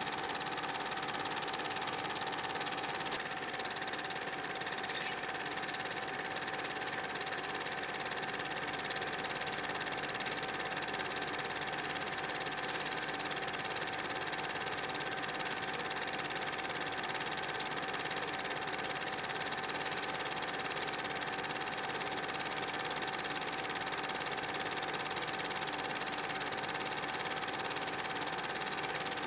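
Super 8 film projector running steadily, with a constant hum.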